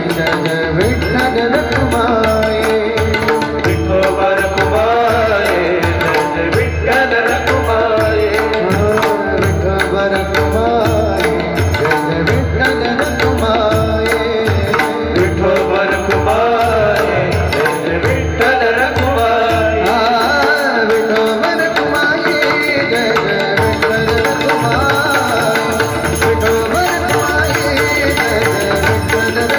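Marathi devotional bhajan music with a steady drum beat under a pitched melody.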